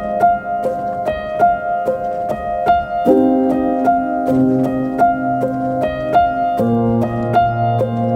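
Background music: a piano or electric-piano tune with repeated notes over sustained low chords that change about every three seconds.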